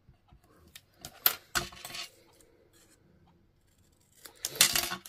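Paper snips cutting a strip of designer paper: a few sharp clicks and two short snipping cuts, about one and a half seconds in and a louder one near the end.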